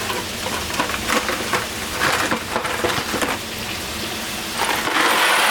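Dry pasta poured from its box into a pot of boiling water: a patter of small clicks and splashes that swells into a louder steady rush near the end.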